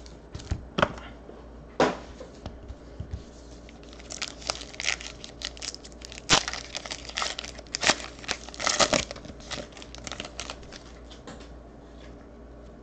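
Foil wrapper of a 2018 Panini Luminance football card pack crinkling and tearing as it is opened by hand, with sharp clicks and rustles from the cards being handled. The rustling is busiest in the middle and dies down near the end.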